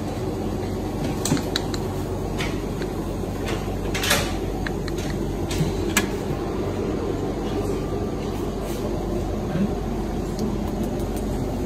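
Steady low mechanical hum of room ventilation, with scattered light clicks and knocks; the loudest knock comes about four seconds in and another about six seconds in.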